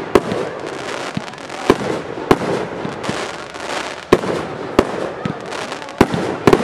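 Aerial fireworks shells bursting in a display: about seven sharp bangs at uneven intervals, over a steady noisy haze. The loudest bangs come just after the start, about four seconds in and about six seconds in.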